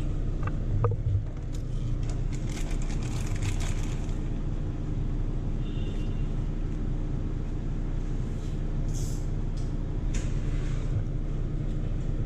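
A steady low machine hum with a few fixed low tones. Over it come scattered light clicks and brief crackly rustles as the plastic ink tubes and tube clips are handled.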